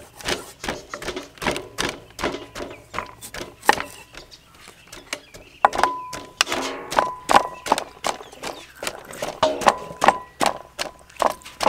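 Cleaver chopping limes on a wooden chopping block, a sharp knock about three times a second. From about six seconds in, a plastic hand squeezer pressing lime halves over a bowl, with short squeaky tones among further knocks.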